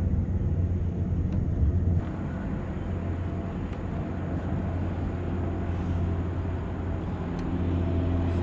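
A steady low mechanical hum, with a few faint ticks.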